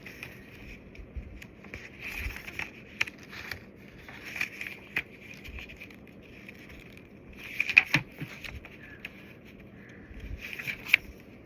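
Small product packaging being handled: rustling with scattered clicks and taps, the sharpest about eight seconds in.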